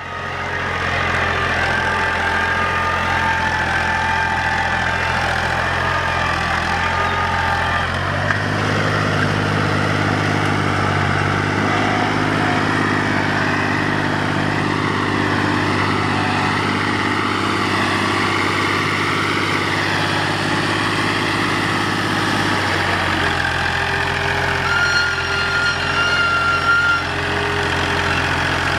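Universal 530 tractor's diesel engine running steadily as it pulls an 11-tine cultivator through the soil. The engine note shifts about eight seconds in and again about twenty-three seconds in.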